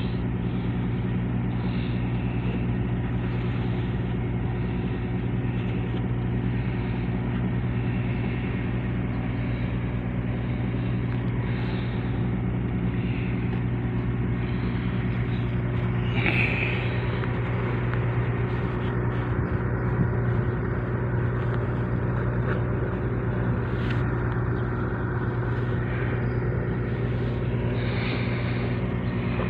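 A large engine running steadily at constant speed: an even, low drone that does not change in pitch.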